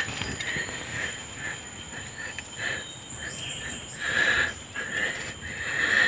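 Short, high chirps repeated irregularly, about once or twice a second, from a small animal, over a steady background hiss.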